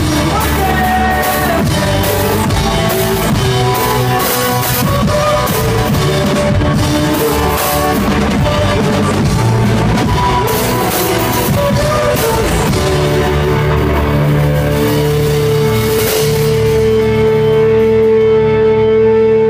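Live rock band playing loudly: electric guitar over a driving drum kit with cymbal crashes. About three-quarters of the way through a single steady note is held, and near the end the drums stop while it rings on.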